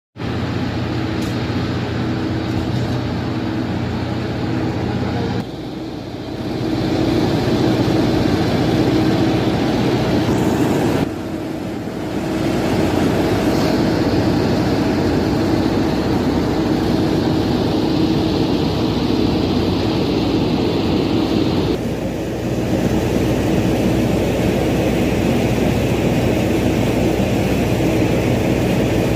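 Steady drone of a turboprop airliner's engines and propellers, with a low hum, changing level abruptly a few times where clips are joined.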